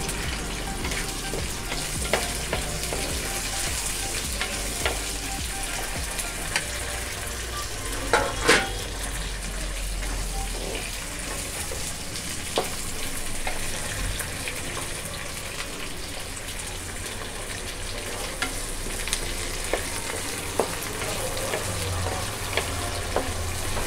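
Tempering frying in hot oil in a clay pot: mustard seeds, fenugreek, cumin, baby onions, red chillies and curry leaves sizzling steadily while being stirred. Scattered clicks and taps run through it, with two louder knocks about eight seconds in.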